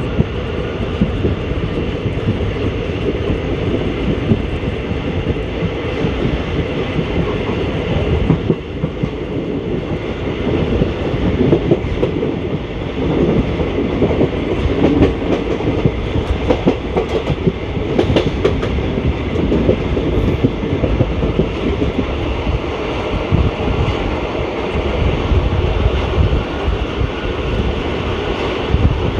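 ICF passenger coaches running at speed: a steady rumble and rush, with the wheels clicking over rail joints throughout.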